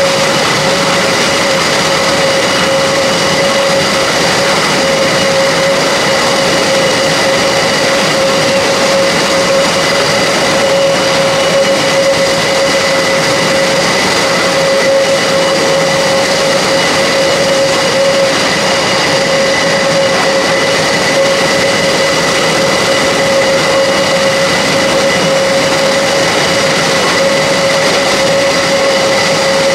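Airbus A400M's TP400-D6 turboprop engines running at idle with the aircraft standing still: a steady, even drone with a clear whining tone that does not change.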